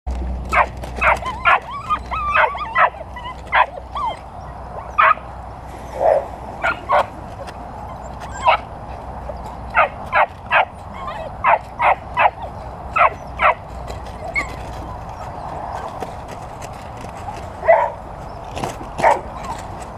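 Dutch Shepherd puppies yipping and barking in short, high-pitched calls, often several a second, as they chase a flirt-pole lure in prey drive. There is a lull of a few seconds about three-quarters of the way through.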